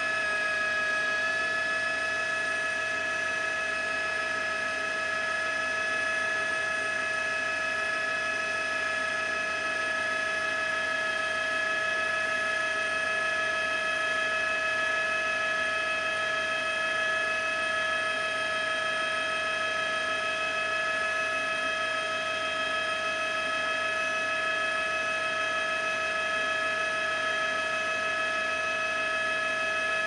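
Steady machine whine of a helicopter heard from on board: several held tones over an even hiss, unchanging throughout.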